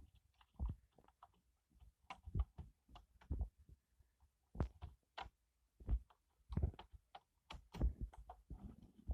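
Keys being typed on a keyboard: irregular keystrokes, knocks and clicks at uneven spacing.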